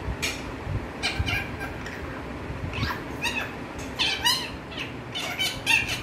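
Indian ringneck parakeet chattering: quick clusters of short, squeaky chirps and chatter notes, in four bursts, loudest near the end.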